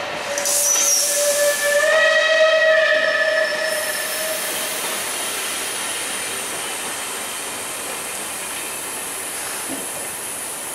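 Belmond British Pullman coaches rolling slowly past. A long, loud, steady tone with overtones sounds for the first four or five seconds, after which a high hiss carries on.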